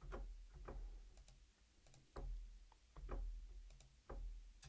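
Faint clicks, about five of them at irregular intervals, over a low steady hum.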